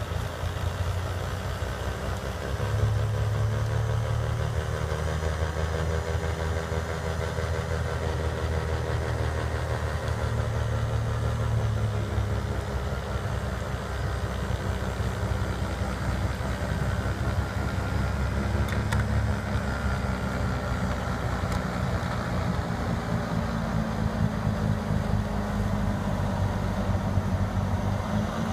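New Holland skid steer's diesel engine running steadily while it works an FFC snowblower attachment. It gets louder about three seconds in, and its pitch shifts around the middle.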